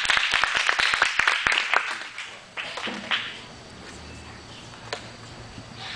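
Clapping and applause from a small crowd, dying away after about two seconds; then the room is quieter, with a faint knock near the end.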